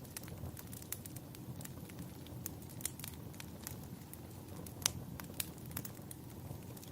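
Wood fire burning: a low, steady rumble of flames with scattered sharp crackles and pops, the loudest about five seconds in.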